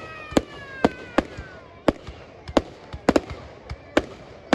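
Fireworks display: about ten sharp bangs from bursting shells, unevenly spaced at roughly two a second, with a falling whistling tone over the first second and a half.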